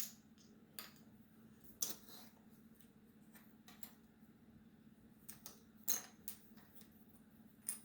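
Puzzle pieces being handled and set down: scattered light clicks and taps, a few seconds apart, over a faint steady hum.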